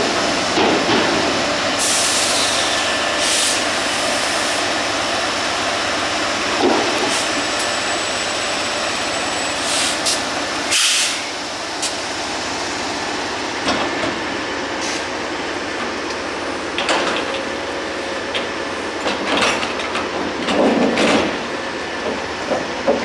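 Railroad work train rolling along the track: a steady rumble and wheel noise, broken by a short hiss about two seconds in and a series of sharp clanks and knocks, the loudest about halfway through and several more near the end.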